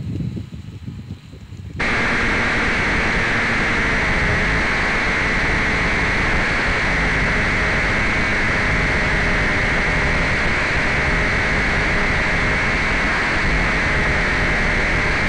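Steady, loud static hiss from the recorded audio channel of an analog FPV video link, which carries no sound, only noise. It starts abruptly about two seconds in, after a moment of wind on the microphone.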